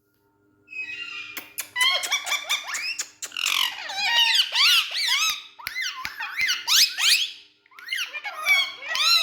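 Indian ringneck parrots chattering with rapid, high, squeaky calls, each note sweeping up and down in pitch, with a brief lull near the end.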